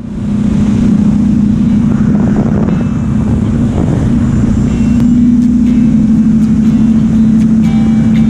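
BMW R1200GS flat-twin engine running steadily at cruising speed, mixed with heavy wind rush over the microphone. It fades in at the start.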